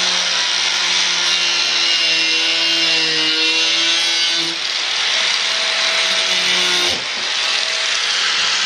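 Angle grinder cutting through the edge of a car's front bumper, running continuously with a dense grinding hiss over a steady motor tone. The motor pitch sags a little as the disc bites in the middle, and the sound eases briefly about seven seconds in before picking up again.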